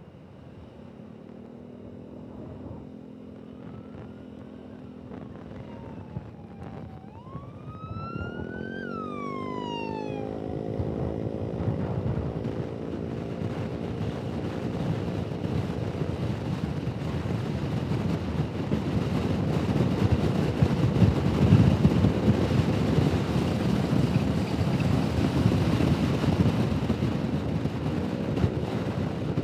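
Honda Forza 125 scooter's single-cylinder engine running under way, its pitch climbing as it accelerates about a third of the way in. Rushing wind on the helmet microphone then builds up with speed and becomes the loudest sound. A brief high whine rises and falls just before the acceleration.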